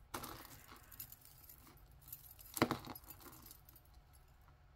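Metal costume jewelry jingling and clinking as the pieces are handled and pulled from a pile: chains, beads and dangle earrings knocking together. One sharper clink comes about two and a half seconds in.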